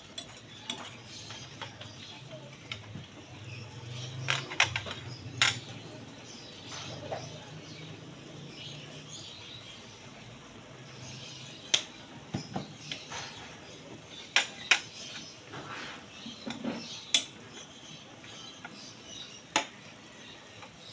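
Metal ladle clinking and scraping against a pan while stir-frying pancit noodles, in scattered sharp clinks every second or two.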